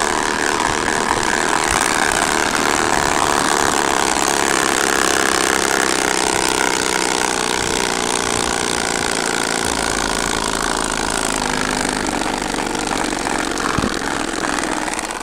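Homemade bicycle 'exhaust' made from a plastic jar mounted beside the rear wheel, buzzing steadily like a motorbike engine as the bicycle is pedalled. The buzz eases off near the end.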